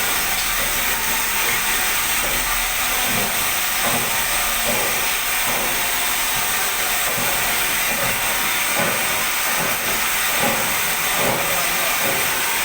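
Crystal tube ice machine running: a steady, loud hiss with faint irregular knocking underneath.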